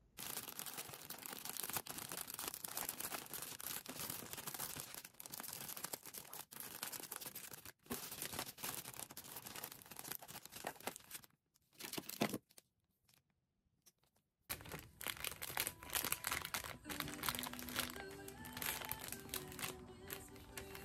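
Clear plastic gift bag crinkling and rustling as hands slide an item into it and handle it, broken by a few seconds of near silence around the middle. In the last third, soft background music plays under the crinkling as a ribbon is tied on the bag.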